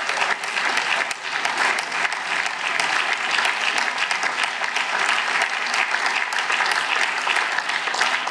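Applause from parliament members: many people clapping together at an even level.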